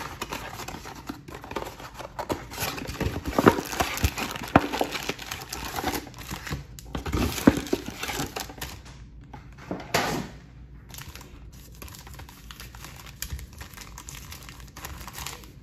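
A cardboard trading-card box being torn open and its foil card packs handled: dense crackling, crinkling and tearing of wrapping and cardboard for most of the first nine seconds, then quieter rustling as the packs are set out on the table.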